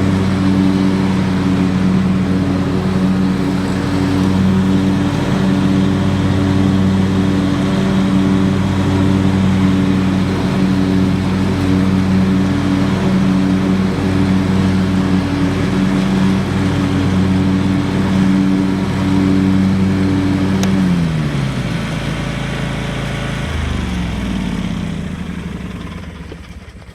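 John Deere X350 riding lawn tractor's engine running steadily at a high throttle; about 21 seconds in it is throttled down, the pitch falling, then runs lower for a few seconds and dies away as it is shut off near the end.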